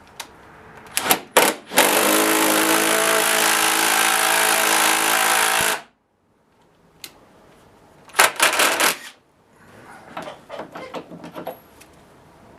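Bosch GDX 18V cordless impact driver hammering a lag bolt in for about four seconds before it stops abruptly. A second short burst follows about eight seconds in, then light clicks and handling.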